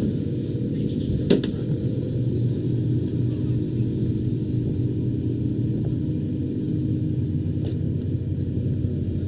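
Tractor engine running steadily at idle, an even low rumble, with a sharp click about a second in and another near the end.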